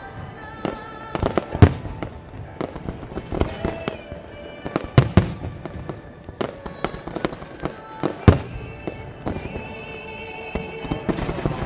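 Starmine fireworks barrage: shell bursts booming and crackling several times a second, the biggest bangs about a second and a half, five and eight seconds in. Music with held tones plays alongside.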